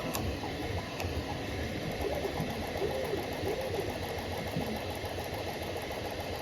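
Bambu Lab A1 3D printer printing: a steady mechanical whirr from its stepper motors, with a few short rising-and-falling tones in the middle as the print head changes speed, and two faint ticks in the first second.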